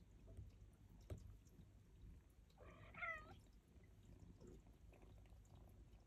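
A Turkish Angora cat meows once, a short call about three seconds in, over faint room hum. A faint click comes about a second in.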